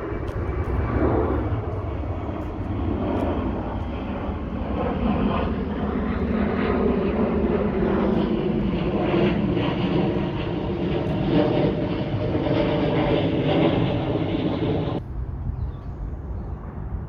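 A loud, steady engine drone with several pitched lines that drift slightly, over a heavy low rumble. It cuts off abruptly about fifteen seconds in.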